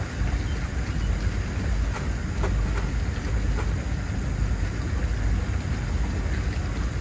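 Wind buffeting the microphone on an open shoreline: a steady low rumble, with a few faint clicks in the middle.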